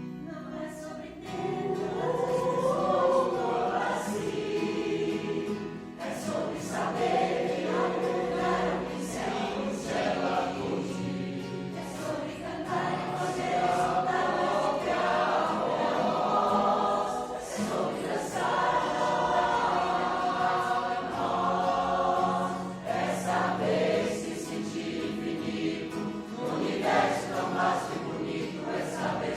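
Choir singing in parts, coming in about a second in and going on phrase after phrase over a steady low accompaniment.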